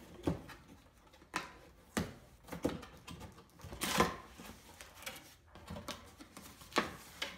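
Cardboard box being opened by hand: its flaps pulled loose and folded back, a series of short sharp scrapes and rustles of cardboard, the loudest and longest about four seconds in.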